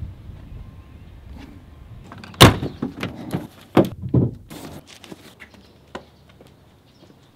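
A car door shutting with a loud thump about two and a half seconds in, then several more thuds and knocks against the car's body as someone clambers over it.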